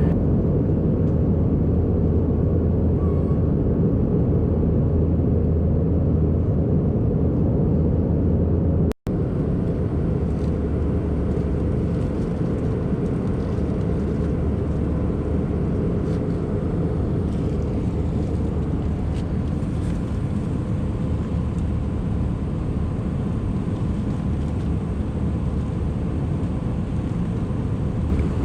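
Steady cabin rumble of an Airbus A319 in flight, engine and airflow noise heard from inside the passenger cabin. It cuts out for an instant about nine seconds in, then carries on unchanged.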